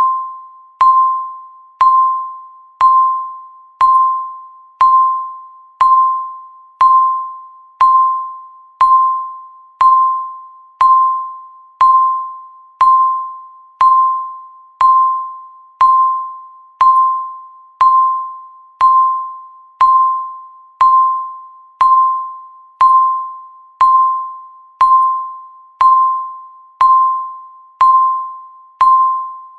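Countdown timer beeping once a second: a single pitched electronic beep that strikes sharply and fades away before the next, repeating at an even one-second rhythm.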